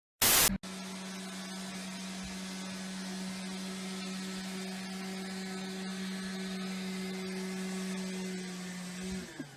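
A short loud burst of noise, then a small electric motor running with a steady hum, which drops in pitch and winds down about nine seconds in.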